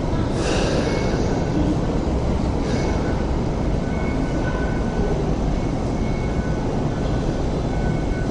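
Hong Kong Light Rail Phase 5 two-car light rail train running slowly past along the platform as it pulls in, a steady low rumble. Two short hisses come about half a second and three seconds in, and faint thin whines come and go.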